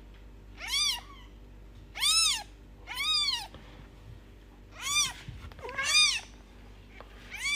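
Newborn British shorthair kitten mewing. It gives about six short, high-pitched cries roughly a second apart, each rising and then falling in pitch.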